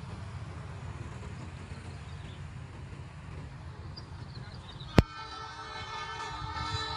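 Steady low rumble of wind and distant traffic. About five seconds in, a sharp click, then a distant train horn sounding a chord of several steady tones as the train approaches.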